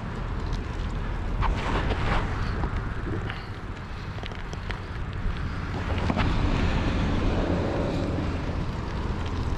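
Wind rushing over the microphone while riding a hybrid bicycle, a steady low rumble with road and tyre noise underneath. A few light clicks come from the bike or the road surface.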